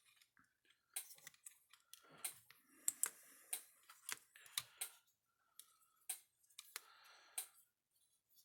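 Faint, irregular clicks and short metallic scrapes of a tool working a bent spade connector terminal back into line on the fence charger.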